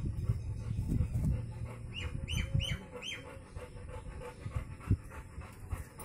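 Black Labrador puppy panting and moving about close to the microphone. About two seconds in comes a run of four quick, falling chirps.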